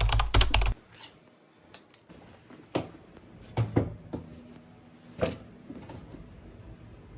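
Rapid clattering clicks over a low rumble that stop under a second in, then a few separate knocks and clicks.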